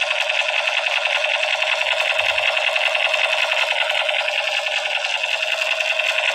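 Battery-powered toy M60 machine gun firing its electronic rapid-fire sound, a loud steady rattling burst through a small speaker.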